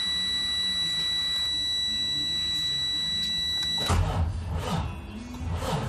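Truck dash warning buzzer sounding a steady high tone at key-on, cut off about four seconds in as the starter engages and the Freightliner Cascadia's diesel engine cranks over with a rhythmic churning.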